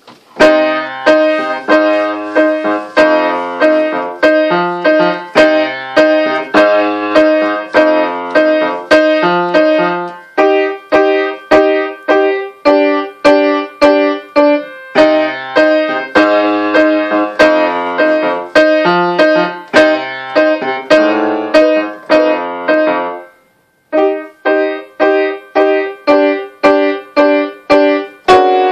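A melody played on a piano keyboard, with evenly paced notes about two a second over low accompanying notes. The playing breaks off for about a second near the end, then carries on.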